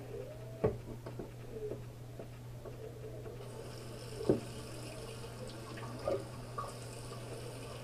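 Tap water running in a steady stream from about a third of the way in, wetting a facial spin brush, with a few light knocks of handling and a steady low hum beneath.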